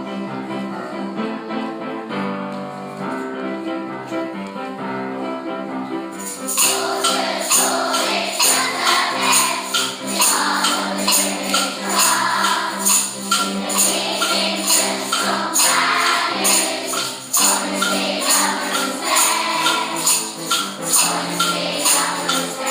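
Background music: held keyboard chords, then about six seconds in a steady tambourine beat and singing voices join.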